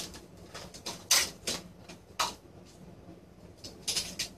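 Irregular sharp knocks and clatters of hard objects being handled and set down on a desk, several in the first two seconds and a close pair near the end.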